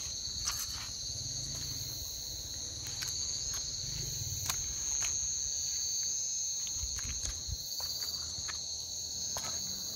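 A steady chorus of night insects trilling at two high pitches, over a low rumble and a few faint clicks.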